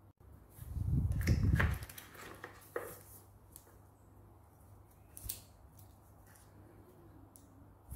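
Handling noise from a Parkside PKA 20-LI-A1 cordless inflator: a low rubbing rumble about a second in as the unit and its hose are moved, then a few small, sharp clicks as the hose's clip-on valve chuck is handled.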